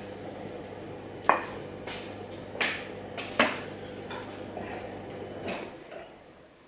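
Bally Wulff slot machine humming steadily from its powered-up electrics, with several sharp clicks and clinks as it is handled. The hum cuts off about five and a half seconds in as the machine is switched off.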